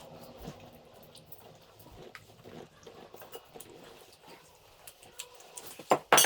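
Soft, scattered clicking and smacking of people chewing and eating momos, with two sharper knocks a little before the end.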